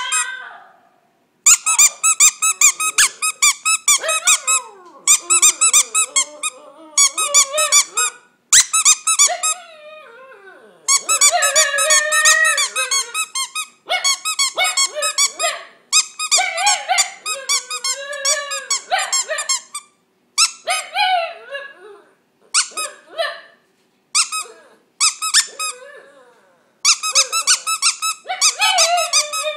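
A small dog howling and whining in long wavering cries that slide up and down in pitch. Alongside them, and louder, come rapid runs of high, repeated squeaks that start and stop every few seconds.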